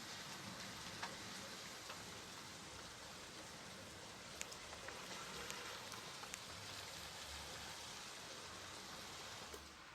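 Steady rain falling, an even hiss with individual drops ticking through it, a few sharper drop hits standing out.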